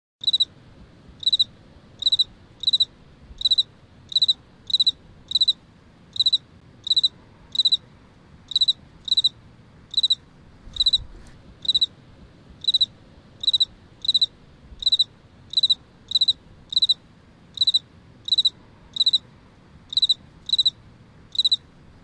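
A cricket chirping: short, high-pitched chirps about one to two a second, often in close pairs, over a faint background hiss.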